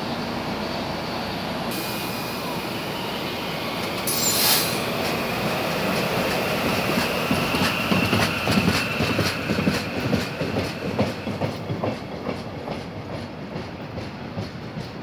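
SEPTA Silverliner V electric commuter train pulling out. After a short hiss about four seconds in, a faintly rising motor whine comes in, then a run of repeated thumping from flat spots on the wheels, which fades as the train moves away.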